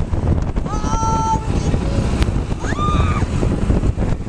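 Wind buffeting the microphone over the rumble of a golf cart driving fast on a dirt road, with two short whooping shouts from riders, about a second in and again near three seconds.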